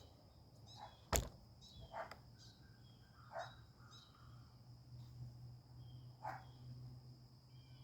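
Faint outdoor background of a few scattered bird chirps over a steady high insect trill and a low hum, with one sharp click about a second in.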